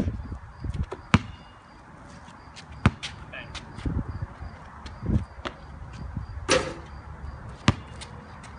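A basketball bouncing on a concrete driveway: a handful of separate sharp knocks and thuds at uneven intervals, with a longer, noisier burst about six and a half seconds in.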